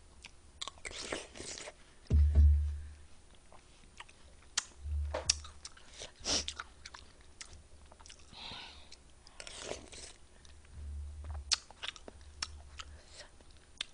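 Close-miked eating of watermelon fruit punch: wet chewing and crunching with many short mouth clicks and a few soft hissing slurps. Several dull low thumps stand out, the loudest about two seconds in.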